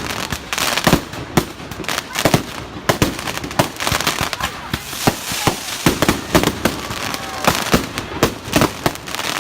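Fireworks going off: a dense, irregular string of sharp bangs and crackles, several a second.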